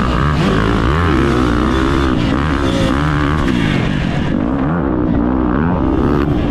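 Off-road racing engine revving up and down over and over, about once a second, with a constant rushing hiss of wind.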